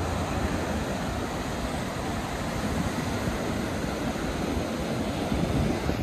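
Steady rush of ocean surf and wind, with wind buffeting the microphone.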